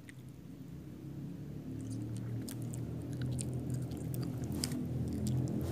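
Close-up chewing of a snack, with the crinkle and click of its plastic wrapper. Under it, a low hum grows steadily louder.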